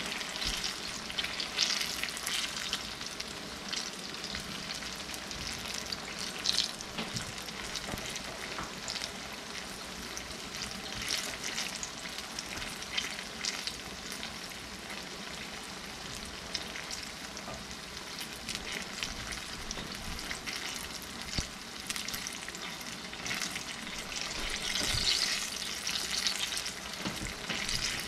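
Homemade fried pies cooking in hot grease: a steady sizzle flecked with crackling pops, swelling louder near the end.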